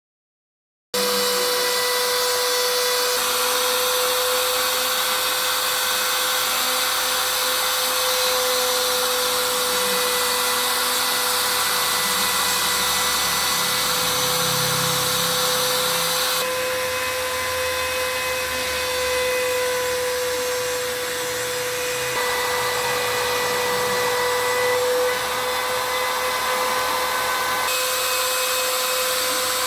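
Spindle motor of a DIY CNC machine running steadily with a constant high whine over a loud hiss, starting about a second in.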